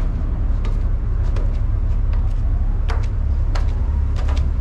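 Steady low rumble of the ship's engine, with footsteps and flip-flop slaps as a person climbs a staircase, about one or two clicks a second.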